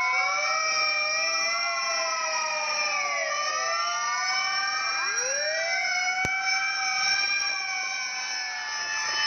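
Several fire truck sirens wailing at once, their pitches rising and falling out of step with each other. A single sharp click about six seconds in.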